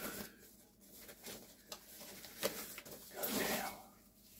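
Thin plastic bag crinkling and rustling as an oscilloscope is pulled out of it, in a few short crackles and one longer, louder rustle about three seconds in.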